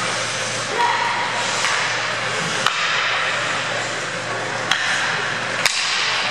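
Indoor ice-rink game sound: a steady hiss of skates on the ice and arena noise, with three sharp clacks of hockey sticks and puck in the second half.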